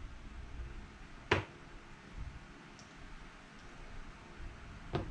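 Casino chips clicking against each other as they are handled: one sharp click about a second and a half in, then a few clicks near the end as chips are taken from a stack.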